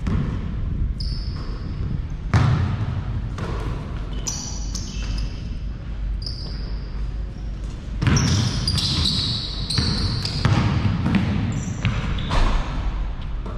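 Basketball bouncing and dribbled at an irregular pace on an indoor court, with several short, high-pitched sneaker squeaks.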